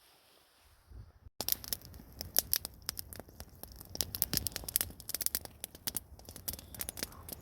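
Dense crinkling and rustling with many sharp crackles, as of material being handled, starting abruptly about a second and a half in after a quiet moment.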